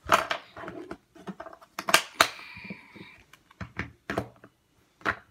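Irregular sharp plastic clicks and knocks from Rubik's cubes being handled, about seven in all, with a short cluster about two seconds in.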